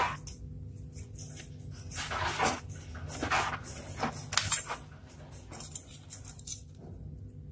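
Small craft parts being handled on a tabletop: a series of short, irregular scraping and rustling sounds from a blade, a craft stick and a piece of thin can metal, over a steady low hum.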